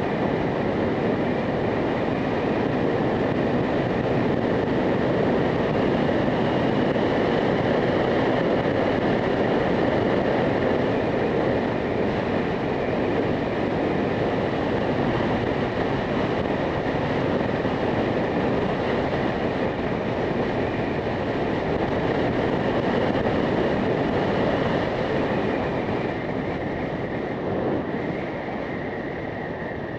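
A motorcycle underway at steady speed: an even rush of wind and road noise over the engine, with a faint steady whine, getting a little quieter near the end.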